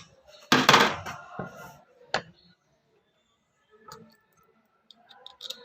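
Metal parts of a power steering gearbox being handled and fitted together: a loud scraping clatter about a second in, then a sharp click, a knock and a few light clicks of metal on metal.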